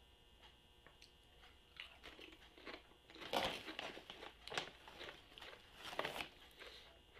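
Mouth chewing a Lay's potato chip: irregular crunches, the loudest bunch about three and a half seconds in.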